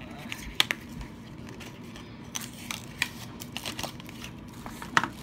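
Small cardboard box of an eyeshadow quad being opened and handled by hand: a series of light clicks, taps and scrapes of packaging, with the sharpest clicks about half a second in and near the end.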